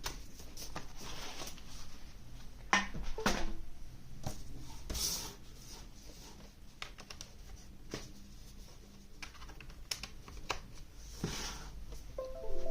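Scattered clicks, taps and rustles of a wired gaming mouse and its cable being handled and plugged in, with a few louder brief scuffs.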